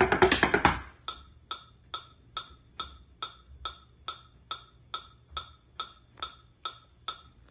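An instrumental drum beat stops just under a second in. After it, only a steady wood-block-like click keeps time at 140 beats per minute, like a metronome.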